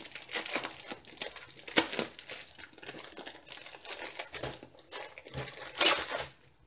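Plastic mailer bag crinkling and rustling as it is opened and a paper-wrapped rolled canvas is slid out of it, with one louder rasp near the end.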